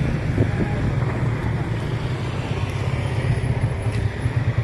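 Vehicle engines running with a steady low hum.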